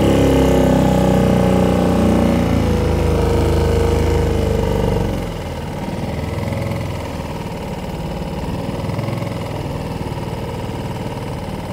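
A small boat's engine running steadily under way. It gets quieter about five seconds in and then holds steady.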